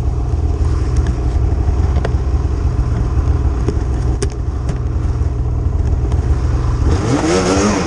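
Snowmobile engine idling steadily with a few light knocks, then revving and pulling away near the end, its pitch rising and wavering.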